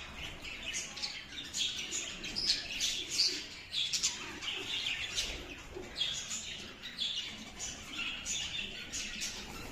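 Several pet budgerigars chirping and warbling continuously, many short overlapping calls.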